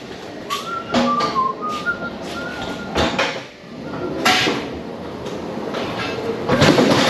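Manual pallet jack pulled across a trailer floor: its wheels rattle and rumble as it rolls, with short squeaks in the first few seconds, several sharp knocks, and the loudest clatter near the end.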